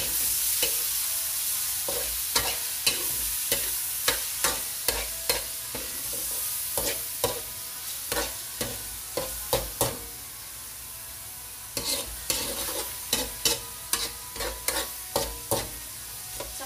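Metal spatula scraping and knocking against a metal wok, about two strokes a second, as beef tripe and onions are stir-fried over a steady frying sizzle. The strokes stop for about two seconds two-thirds of the way through, leaving only the sizzle, then resume.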